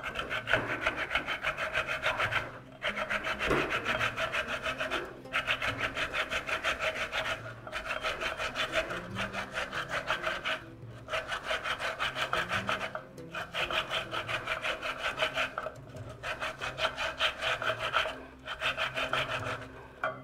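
A halved tomato grated on the medium holes of a stainless-steel box grater standing in a glass bowl: a rasping scrape of quick repeated strokes, in runs of two or three seconds with short pauses between.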